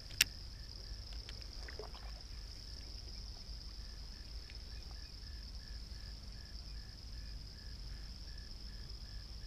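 Steady high-pitched chorus of insects with a faint, regular chirp repeating about three times a second; one sharp click just after the start.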